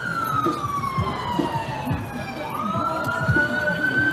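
Emergency vehicle siren on a slow wail: its pitch falls over about two and a half seconds, then climbs back up and holds high.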